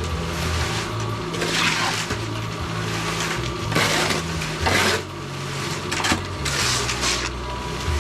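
A small engine running, its pitch stepping up and down, with several gritty rushing bursts over it.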